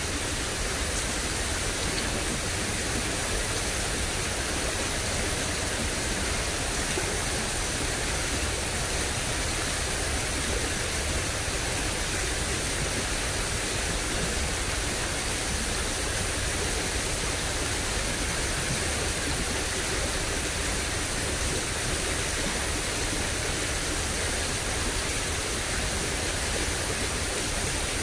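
Steady rush of water flowing in a small drainage ditch, an even, unbroken noise with a low rumble beneath it.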